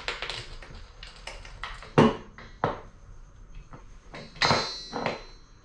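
Hand grease gun being worked on the grease fittings of a tubular A-arm: sharp metallic clicks and clanks, the two loudest about two seconds in and shortly after, then a short high-pitched ring near the end.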